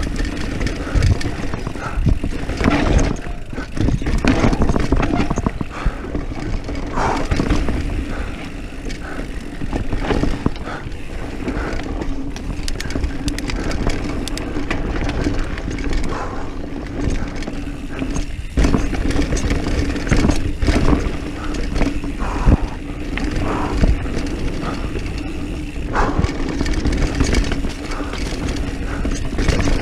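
Diamondback Mission 1 mountain bike descending a dirt singletrack at speed: knobby tyres rolling over dirt and the bike rattling and clattering over bumps, with wind rushing on the microphone. A steady low hum runs under the rattles.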